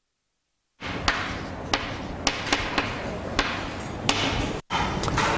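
Chalk writing on a blackboard: scratchy strokes broken by many sharp taps as the chalk strikes the board, starting about a second in.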